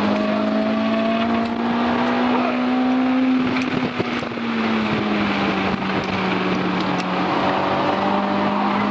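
Acura RSX's four-cylinder engine running hard on track, its note climbing slightly, then easing off about three and a half seconds in, with a brief dip in loudness around four seconds in, over steady wind and road noise.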